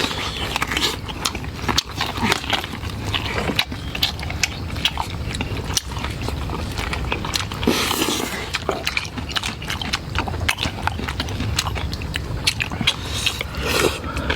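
Close-up eating sounds: a person biting and chewing food, with many small crisp clicks.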